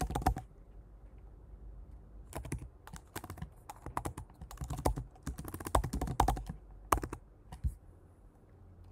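Typing on a computer keyboard: several short bursts of keystrokes with pauses between them, stopping about a second before the end.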